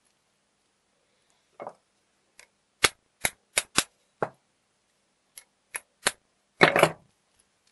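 Sharp metallic clicks from a just-repaired ABUS XP1 lock cylinder being handled and worked: about nine separate clicks, then a louder, longer clatter near the end.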